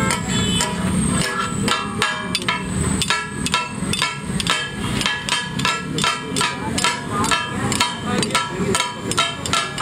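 Two flat steel spatulas striking and scraping a hot tawa griddle in a quick, regular rhythm: about three metallic clangs a second, each ringing briefly, with the food sizzling underneath.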